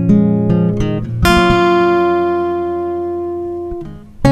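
Acoustic guitar music: a few quick plucked notes, then a chord left ringing that slowly fades out, with playing starting again near the end.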